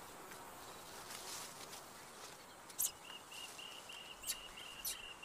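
Quiet tropical forest ambience: a faint steady hiss, joined about three seconds in by a high, thin call pulsing about three times a second, with a few sharp clicks scattered through it.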